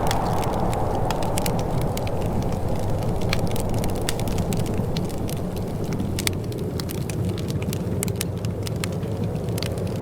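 Wood fire crackling in a fireplace, with frequent irregular sharp pops and snaps over a steady low rush.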